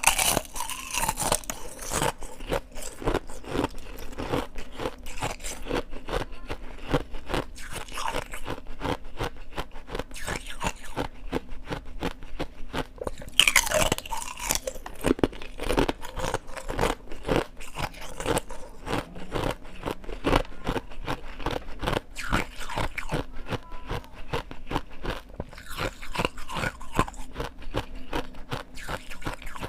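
Ice being bitten and chewed close to the microphone: a steady run of crisp crunches, with harder bites near the start and about halfway through.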